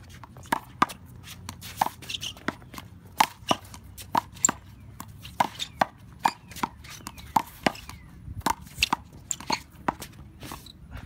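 A one-wall handball rally: the small rubber ball is slapped by gloved and bare hands, smacks off the wall and bounces on the hard court. It makes a quick, irregular string of sharp smacks, two or three a second.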